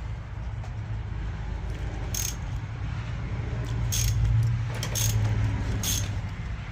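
Metal hand tools clinking with a few sharp ratchet-like clicks while the oil filter is being worked loose, over a steady low hum.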